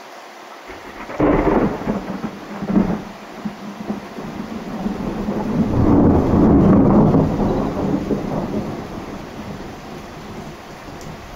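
Thunder over steady rain: a sharp crack about a second in that rumbles on for a couple of seconds, then a longer rumble that swells around the middle and slowly fades away.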